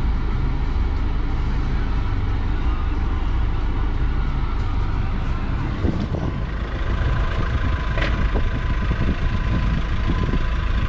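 Suzuki Vitara's engine running at low speed as the car creeps over a grassy field, heard from inside the cabin, with a couple of short knocks about six and eight seconds in.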